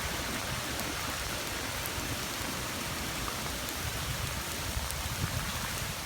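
Heavy wind-driven rain falling steadily, with an uneven low rumble of wind on the microphone.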